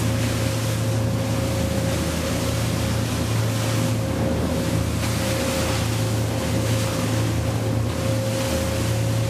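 Motorboat engines running steadily at speed, a constant drone under the rush and splash of water against the hull as the boat runs through rough sea, with wind noise.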